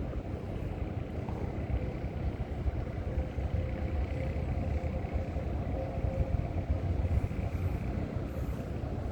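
Steady low rumbling noise, with a faint steady hum under it.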